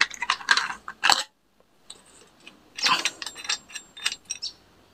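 Metal parts of an angle grinder being dismantled by hand: the cutting disc, steel guard and a bolted steel bracket clink and scrape. The clicks come in two clusters, the second about three seconds in.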